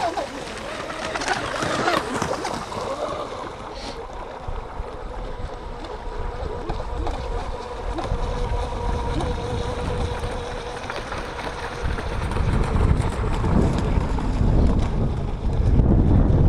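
Electric RC boat motor whining steadily out on the water. Wind buffeting the microphone grows loud about three-quarters of the way through.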